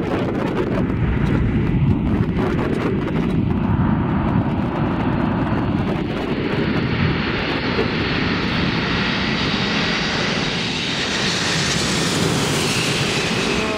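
Jet airliner on final approach, its engines' noise building as it nears overhead, with a rising high-pitched jet whine in the last few seconds. Gusty wind buffets the microphone early on.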